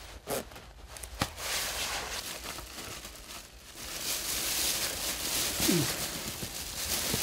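A thin plastic garment cover rustling and crinkling as hands grope through it, louder in the second half. Two sharp clicks come in the first second or so.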